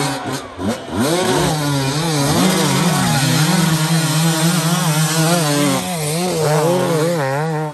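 Enduro dirt-bike engines revving hard on a steep climb. The pitch rises and falls repeatedly as the throttle is worked, over a steadier engine note.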